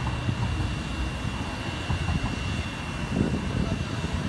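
Locomotive turntable rotating with a steam locomotive on it: a steady low rumble with a thin, steady high whine.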